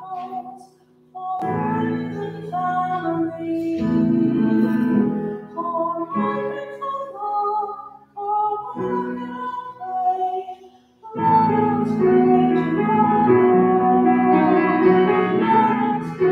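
A hymn sung by a small congregation with instrumental accompaniment, in sustained phrases broken by short pauses between lines.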